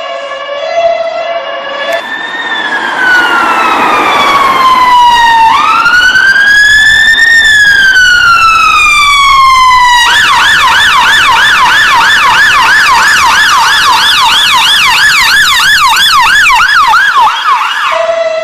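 British ambulance siren cycling through its modes: a two-tone hi-lo at first, then about two seconds in a slow wail that falls, rises and falls again over about eight seconds, then a fast yelp sweeping up and down about three times a second. Near the end it switches back to the two-tone.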